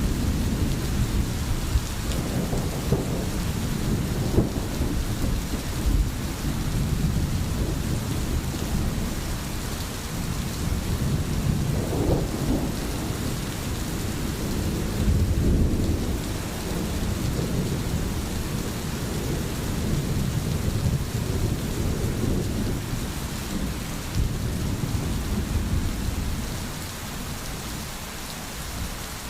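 Steady rain falling, with rolling thunder rumbling low underneath. The thunder swells twice around the middle and eases off near the end.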